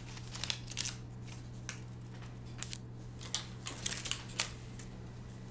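Soft rustling and scattered light clicks of something being handled, over a steady low electrical hum.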